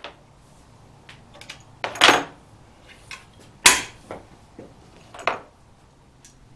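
Several sharp knocks and clunks a second or so apart, the loudest about three and a half seconds in, as metal Rugged Buddy folding sawhorse legs are handled and fitted on a plywood tabletop.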